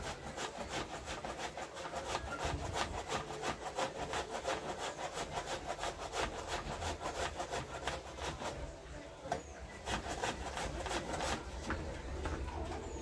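Cassava root being grated by hand: a steady run of quick rasping strokes, several a second.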